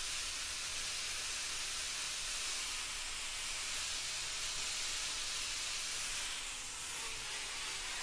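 Angle grinder with a sanding disc running and lightly sanding the hardened spring steel latch, a steady hiss, taking off the scale left by the oil quench so the tempering colours will show. Near the end its whine falls steadily as it winds down.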